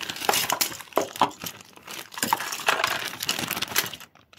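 Crinkling plastic packaging of kit parts being handled and opened, with many sharp clicks of small plastic pieces; it stops near the end.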